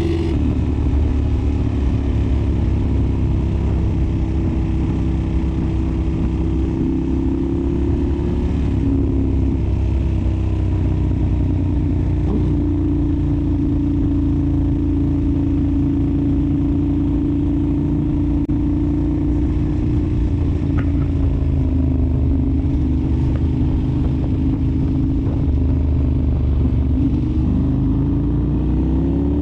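Ducati Monster 1100's air-cooled L-twin engine running through an Arrow exhaust, holding a steady, loud note. The pitch sags a little near the end, then begins to climb.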